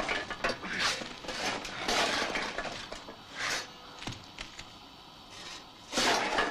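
A series of sudden crashes and clatters, like things breaking. The crashes come about a second apart, ease off for a couple of seconds, then the loudest one comes near the end.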